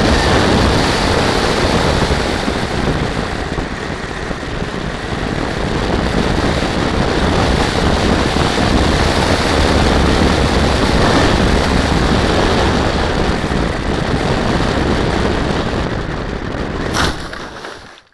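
Onboard-camera audio from a radio-controlled model plane in flight: a steady rush of wind and motor and propeller noise. About seventeen seconds in comes a sharp knock as the plane hits the ground, and the sound stops right after.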